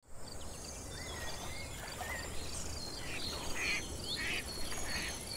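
Outdoor nature ambience: several birds chirping and singing, with a run of short buzzy notes about every half second in the second half, over a steady high insect trill.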